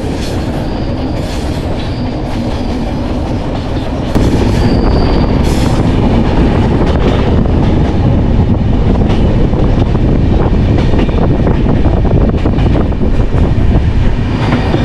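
Kirandul Express passenger train running, heard through an open coach door: wheels clattering on the rails, with brief high wheel squeals as the train takes a curve on its climb. The noise gets louder about four seconds in.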